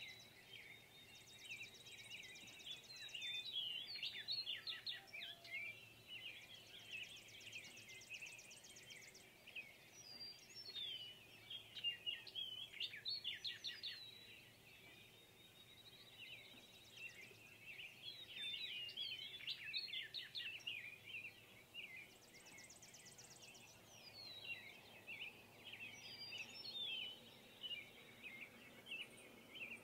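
Faint outdoor birdsong: bursts of quick chirps and twittering that come and go every few seconds, with short, high, buzzy trills in between.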